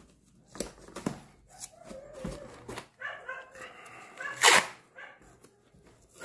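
Masking tape being peeled off a cardboard box: a few short stuttering rasps, then one loud quick rip about four and a half seconds in.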